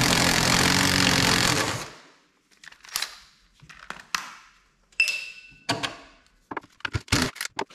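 A red compact cordless power tool runs steadily for about two seconds, loosening a bolt on the ATV footwell. Then come scattered light metallic clicks and taps of tools and fasteners, with a brief ringing about five seconds in and a quick run of clicks near the end.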